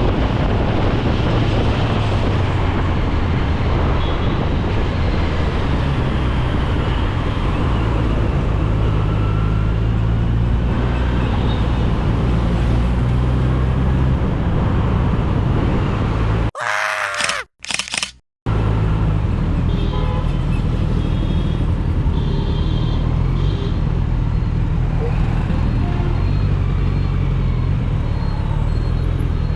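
Kawasaki Z900's stock inline-four engine running on the move in traffic, its pitch rising and falling with the throttle, with car horns sounding at times. The sound cuts out for about two seconds around the middle.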